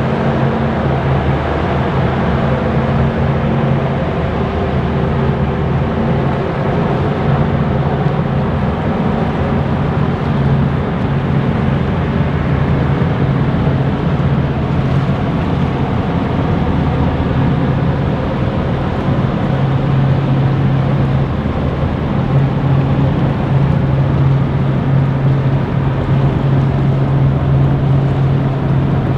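Caledonian MacBrayne car ferry Bute's diesel engines running as the ship moves off the berth: a loud, steady low drone with a constant hum.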